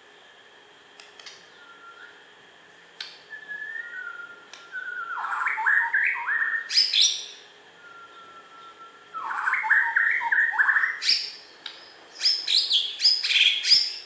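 Bornean white-rumped shama (murai batu) singing: soft drawn-out whistles, then loud bursts of quick rising and falling notes about five and nine seconds in, and a run of rapid high notes near the end. A few light clicks in the first three seconds.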